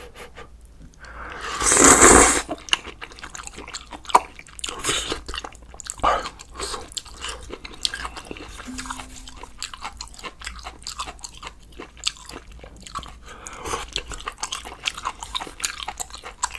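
A person slurping a mouthful of ramen noodles, a long loud slurp about two seconds in, then chewing with many small wet smacks and clicks.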